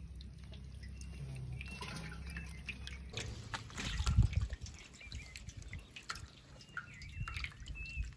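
Water dripping and lapping in a basin of live fish, with small clicks. About three seconds in the sound changes to knocks and rustling as a fish is handled on a tarp, the loudest knock a little after that.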